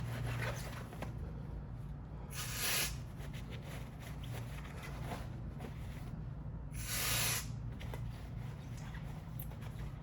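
Aerosol brake cleaner sprayed onto a brake caliper in two short hissing bursts about four seconds apart.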